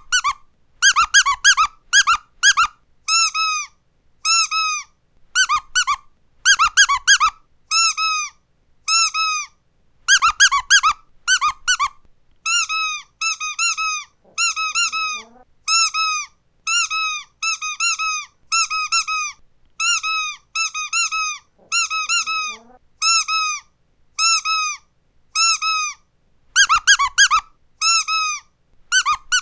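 Rubber squeaky dog toy being squeezed over and over, each squeak a short rising-and-falling tone. The squeaks come in quick runs at the start and near the end, and one at a time in between.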